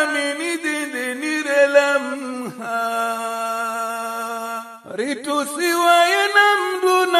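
Male voice singing an Islamic religious chant (nasheed) in an ornamented, melismatic style. About a third of the way in he holds one long steady note, breaks off briefly, then goes back to winding, ornamented phrases.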